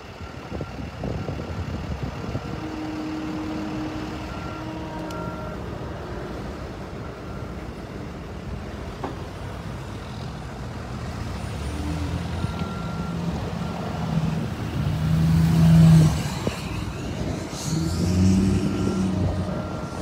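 Road vehicles running and passing on a street, an engine growing louder to a peak about three-quarters of the way through and again near the end, with short high beeps now and then.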